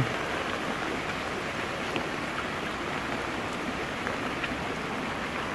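Steady tropical-storm rain falling on a flooded street, with a few faint ticks of drops.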